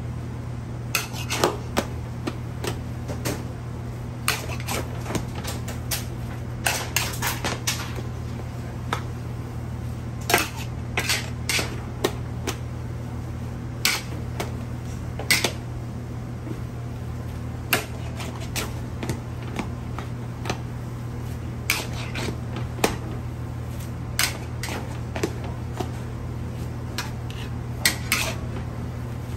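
Metal ladles clanking and scraping against a large metal wok as rice noodles and vegetables are tossed and mixed. The clinks come irregularly, in little clusters, over a steady low hum.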